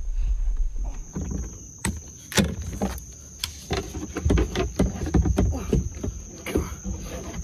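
Irregular sharp knocks and clatter over low rumbling handling noise as a hooked fish is fought from a plastic kayak with a baitcasting rod and reel.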